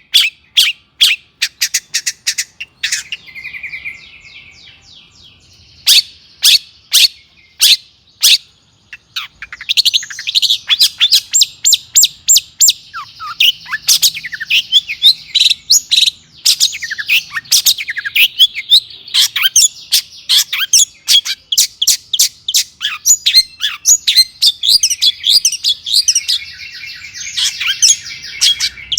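Long-tailed shrike (cendet) singing: sharp loud notes about twice a second, a softer quick chatter, then from about ten seconds in a fast, unbroken, varied song packed with mimicked phrases of other birds.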